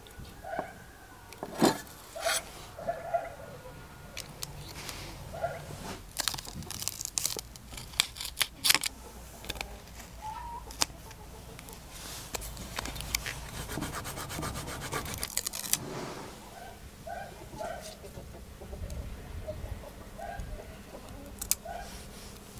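Hand-work with a thin brass sheet and a paper template on a steel plate: scattered sharp taps and clicks of the metal being set down and handled, with stretches of paper and tape rustling.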